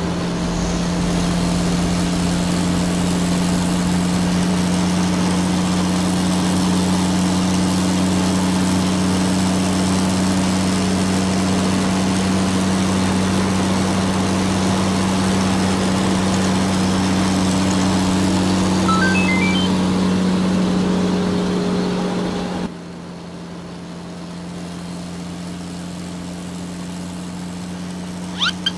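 Steady engine hum of a truck sound effect with a noisy rumble over it. About 23 seconds in, the noise drops away suddenly, leaving a quieter hum; a short rising chirp comes near 19 seconds and two quick clicks near the end.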